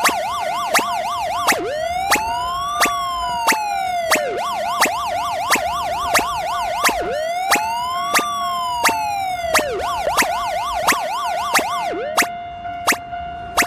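Emergency-vehicle siren sound switching between a fast warble and a slow rising-and-falling wail, twice each, stopping about a second before the end. Beneath it a railroad crossing bell rings steadily, striking about three times every two seconds.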